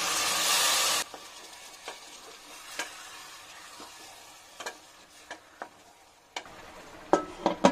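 Water poured into a pressure cooker of masala-coated chicken, a loud, even splashing that stops suddenly about a second in. Then a wooden spatula stirs the chicken, with scattered soft knocks and scrapes against the pot that grow louder near the end.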